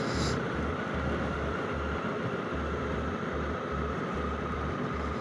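Honda Africa Twin CRF1100L's parallel-twin engine running at low road speed, with road and wind noise. A steady whine drifts slightly lower in pitch as the bike eases off, over an uneven low rumble.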